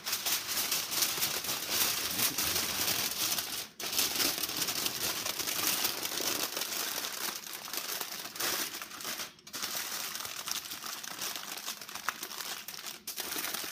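Heavy-duty aluminium foil crinkling and crumpling as it is folded and crimped by hand around a rack of ribs, almost without let-up, with short breaks about four and nine seconds in.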